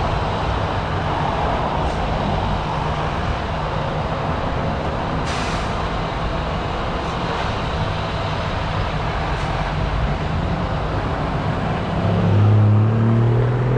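Steady heavy rumble and rolling noise of a freight train passing. Near the end an engine is heard speeding up, its pitch rising and getting louder.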